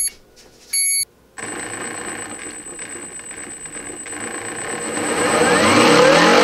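An electronic beep from the boat's speed controller as it powers up, then the RC tugboat's electric motors spinning its twin brass propellers out of the water, the motor whine rising in pitch near the end as they speed up.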